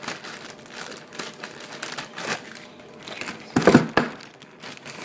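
Plastic packaging crinkling and rustling in short bursts, with a louder short bump about three and a half seconds in.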